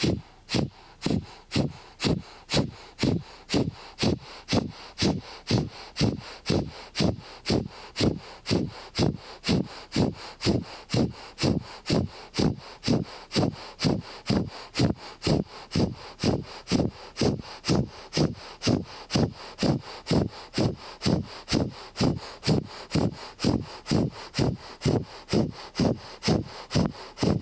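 A woman doing Kundalini breath of fire: powerful breaths in and out through the nose, pumped from the navel, in an even rhythm of about two breaths a second.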